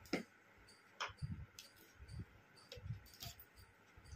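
Light, scattered clicks and taps of spice being spooned from plastic jars onto a steel bowl of vegetables with a small plastic spoon.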